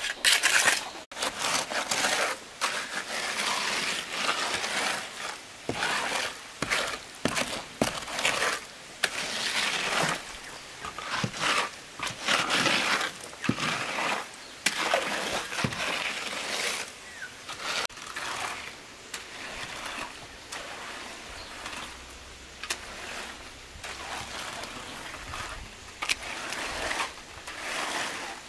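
A steel trowel and then a wooden hand float scraping and smoothing wet concrete in a wooden form, in repeated strokes.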